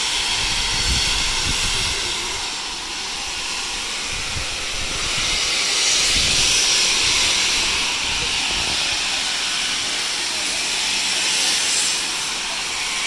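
Steam locomotive letting off steam with a steady hiss that grows stronger about halfway through.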